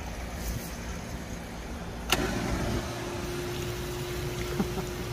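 A switch clicks about two seconds in and a 12-volt bilge pump starts, running with a steady hum as it pumps water out of the kayak's hull through a side drain valve. A low steady rumble runs underneath.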